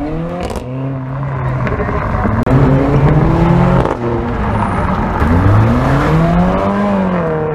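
Mercedes-AMG CLA 45's turbocharged four-cylinder revving up and down several times as the car is driven, with sharp exhaust pops and crackles ('farts') between the revs.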